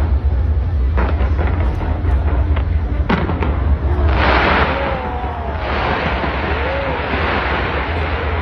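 New Year fireworks fired from the Taipei 101 skyscraper going off nonstop: a heavy low rumble of booms, with sharp bangs about one and three seconds in and a dense crackling from about halfway.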